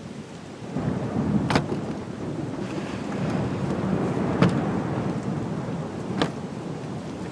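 Steady rain with a low thunder rumble that swells about a second in and keeps rolling, with three sharp clicks scattered through it.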